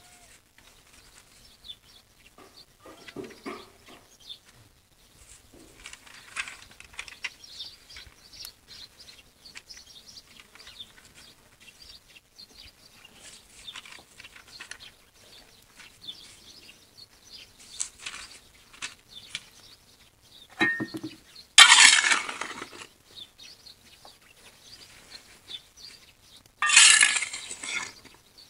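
Paper sheets rustling as they are spread over bread dough, then a metal scoop scraping up hot ashes and embers and pouring them onto the paper, twice, the loudest sounds: the dough is being buried in hot ash to bake.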